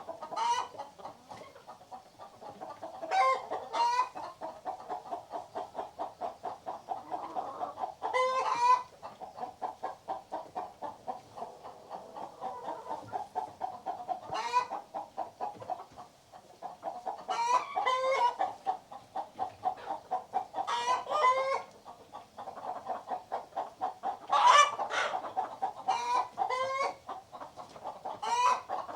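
Hens clucking in a fast, steady run of short clucks, broken every few seconds by louder, higher squawking cackles.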